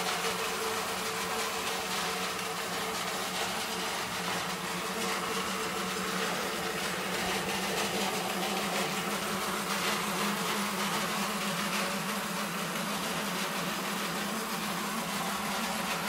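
Motorized grain mill running steadily: a reused car radiator fan motor turning the hand mill through roller chain and gears, giving a constant whirring hum.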